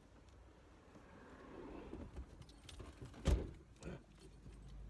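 Car seatbelt pulled across the body with a rustle of webbing, then latched into its buckle with a sharp metallic click about three seconds in, followed by a lighter click. A low steady hum sets in near the end.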